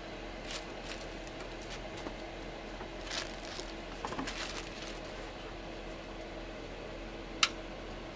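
Faint rustling and knocking as an LED grow light panel and its power cord are handled, over a steady low hum, with a single sharp click about seven seconds in.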